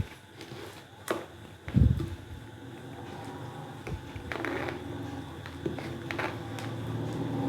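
Kitchen utensils handled at the counter: a few sharp clicks and one heavy thud in the first two seconds, then a low steady hum with occasional light clinks.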